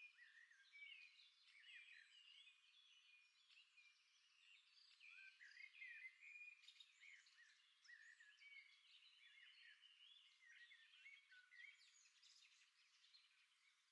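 Faint chorus of many small birds chirping and twittering over one another, short rising and falling notes overlapping throughout.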